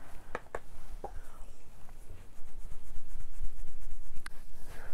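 Makeup brush sweeping contour powder across the cheek, a scratchy rubbing that gets louder about two seconds in, with a few sharp clicks in the first second and another near the end.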